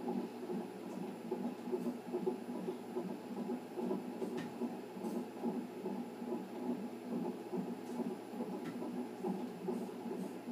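Fetal heartbeat played through a Philips fetal monitor's Doppler speaker: a fast, steady pulse of about 140 beats a minute.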